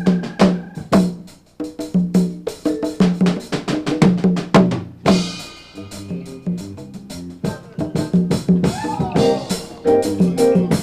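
Live band playing a Nigerian-style groove, led by a drum kit with busy snare and rimshot strikes over a repeating low pitched figure; a cymbal crash rings out about five seconds in.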